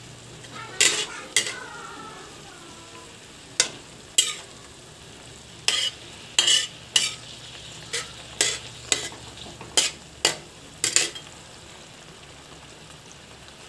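Tocino simmering and sizzling in its thickening soy-sugar sauce in a metal pan. A spatula scrapes and knocks against the pan about fifteen times as it is stirred, stopping about eleven seconds in.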